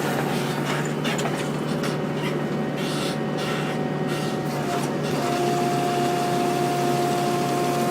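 Excavator running its mowing bucket attachment: a steady engine hum with a high steady whine that grows louder about five seconds in, and a few faint crackles in the first few seconds.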